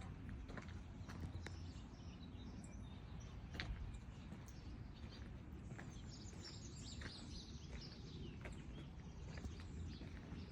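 Small birds chirping, with many short high calls that are busiest around the middle, over a low steady background rumble and scattered faint clicks.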